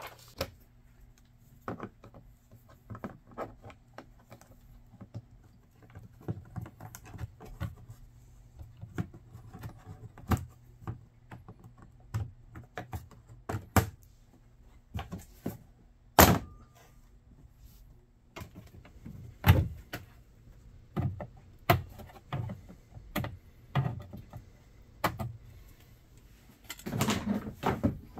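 Plastic dash panels and screws of a Polaris Ranger 1000 UTV being worked loose and pulled off: scattered clicks, taps and knocks, with a few louder knocks midway, over a faint steady low hum.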